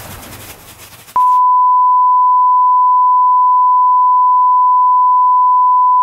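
A short burst of hissing TV-style static, then, about a second in, a loud steady test tone takes over: the single unwavering beep that goes with a TV test card. It holds for about five seconds.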